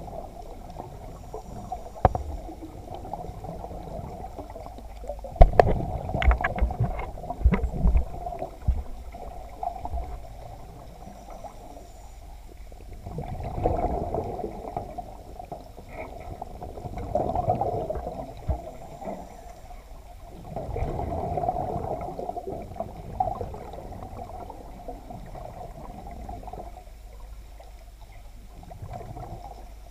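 Underwater sound picked up through an action camera's waterproof housing: a steady muffled hum, with a diver's exhaled bubbles rushing past about every four seconds. A cluster of sharp knocks, the camera housing striking the shark cage's metal bars, comes about five to eight seconds in.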